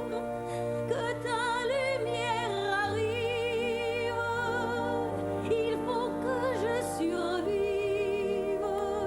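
Stage-musical singing with wide vibrato over a sustained band accompaniment, the bass note shifting about three seconds in and again near the end.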